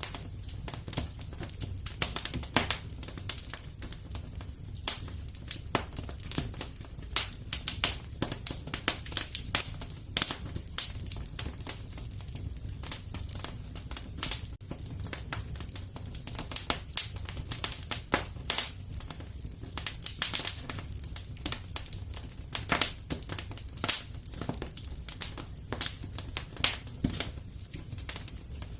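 Wood fire in a fireplace crackling, with dense, irregular snaps and pops over a low, steady rumble of the burning.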